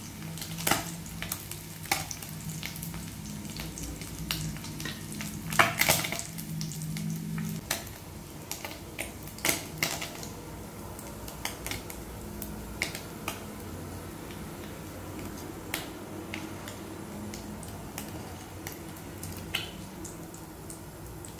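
Fish frying in a pan of oil with a light sizzle, broken by scattered clinks and knocks of a utensil against the pan, the loudest cluster about six seconds in.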